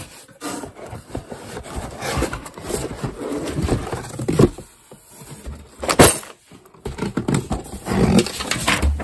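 Cardboard box and moulded pulp-fibre packaging tray being slid out and handled, with irregular rustling, scraping and small clicks, and plastic-bagged parts shifting. There is one sharp knock about six seconds in.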